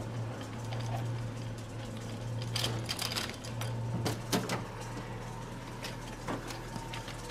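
Sharp clanks and knocks of a metal dog wheelchair frame and its wheels being loaded into the back of a pickup truck, a few grouped around the middle, over a steady low hum.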